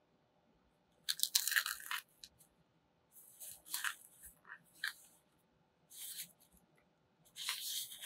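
A leaf frozen brittle in liquid nitrogen crunching and crackling as gloved hands crush it, cracking into many small pieces. The crunching comes in several short bursts, the loudest about a second in.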